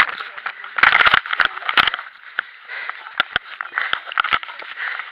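Handling noise from a camera held close against clothing and brush: rubbing and scraping on the microphone with scattered sharp knocks, busiest in the first two seconds.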